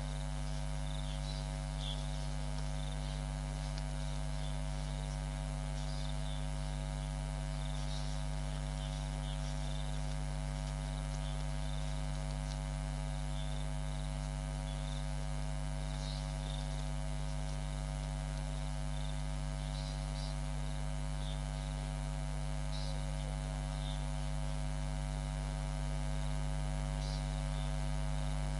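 Steady electrical mains hum, low and buzzy with many overtones, running unchanged through the audio feed. Faint short high chirps are scattered over it.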